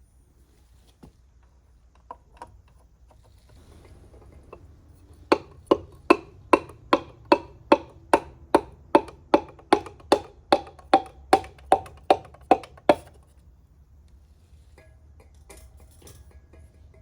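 Steady hammering on a metal part: about twenty sharp taps at an even pace, each with a short ring, after a few scattered clicks.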